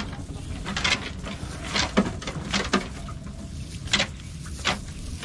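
Irregular sharp slaps and taps from a cast net full of small fish being handled on the wooden floor of a boat, about seven in all at uneven spacing.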